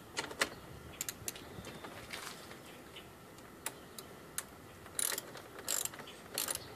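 Hand socket ratchet clicking as a 10 mm socket loosens the nut on a car battery's negative terminal clamp: scattered single clicks at first, then short bursts of rapid clicking in the last couple of seconds.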